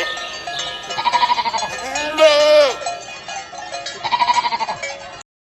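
Sheep bleating three times, quavering calls, the middle one longest and dropping in pitch at its end.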